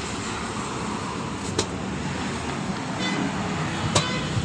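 Steady road traffic noise, with two sharp clicks, one about a second and a half in and one near the end.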